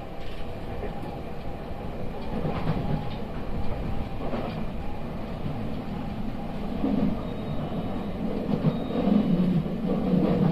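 Nankai electric commuter train running between stations, heard from inside the car: steady wheel-on-rail running noise and rumble. The low rumble grows louder in the second half.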